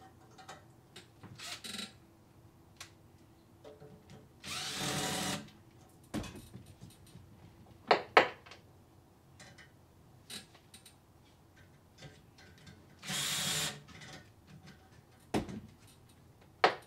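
Cordless drill/driver running in two short bursts, about 4.5 s and 13 s in, backing screws out of a carpet-cleaning wand's trigger valve bracket. Sharp clicks of metal tools and parts are handled on the workbench around 8 s and near the end.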